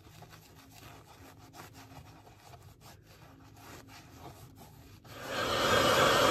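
Microfibre cloth rubbing cream into a leather knife sheath: faint, quick rubbing strokes. About five seconds in, a much louder steady rushing noise starts and keeps going.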